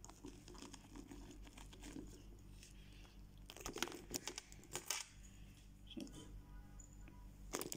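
Small metal clasps on a handbag's sling strap clinking and clicking as the strap is handled and clipped on. There is a cluster of sharp clicks about halfway through and another click near the end.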